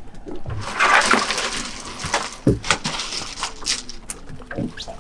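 A short rush of splashing water about a second in, with scattered knocks and clatters on the boat.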